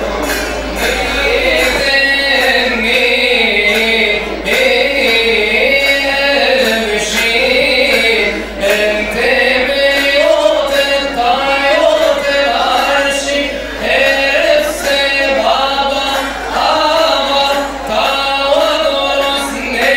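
A group of male and female voices singing a Coptic church hymn in chorus, with light percussion strokes keeping the beat.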